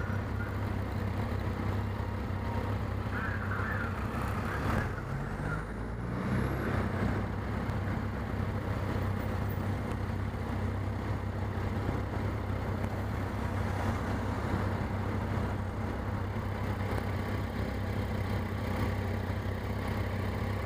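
Motorcycle engine idling steadily at a standstill amid city traffic; about five seconds in, another vehicle's engine rises briefly in pitch as it pulls away.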